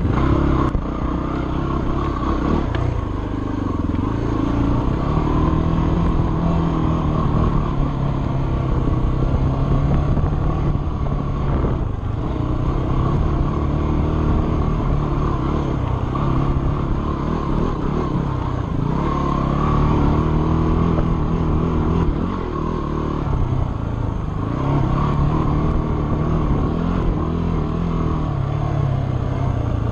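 Dirt bike engine running under a rider on a trail, its pitch rising and falling again and again as the throttle opens and closes.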